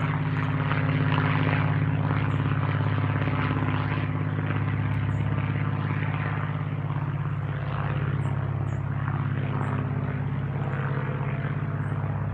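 Small single-engine propeller plane towing an advertising banner overhead, its engine and propeller droning steadily.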